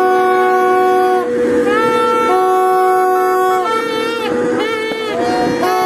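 Several party horns blowing at once: overlapping held notes at different pitches, each lasting about a second or two, over one note that keeps sounding throughout.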